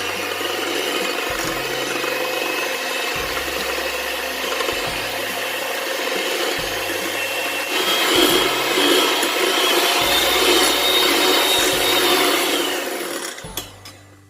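Electric hand mixer beating eggs and sugar in a bowl, its motor whining steadily with the beaters rattling and scraping in the bowl. About eight seconds in it speeds up, rising in pitch and getting louder, then it slows and stops near the end.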